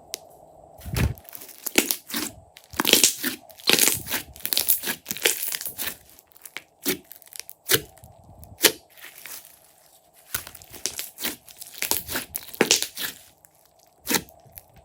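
Slime being kneaded and squished by hand, giving irregular runs of wet crackling and crunching.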